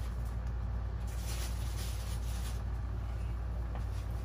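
A steady low hum, with faint rustling of packaging about a second in and again around two seconds in, as food is taken out of the fridge.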